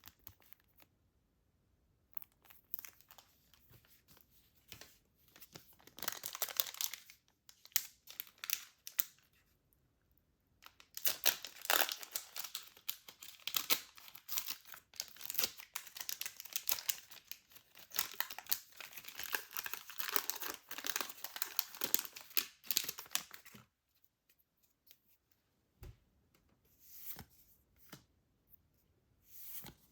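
Trading-card blister pack packaging being torn open and crinkled by hand. There is a short burst about six seconds in, then a long stretch of dense tearing and crinkling of about twelve seconds, and a few scattered rustles near the end.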